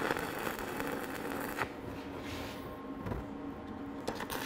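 Shielded metal arc (stick) welding with a 1/8-inch 7018 electrode, the arc crackling steadily as a tack weld is laid, then breaking off about a second and a half in. Just before the end the arc is struck again and the crackle returns for the next tack.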